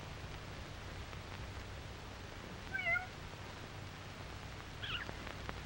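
Young kitten mewing: two short, high mews, one about three seconds in and another near the end, over a steady low hum.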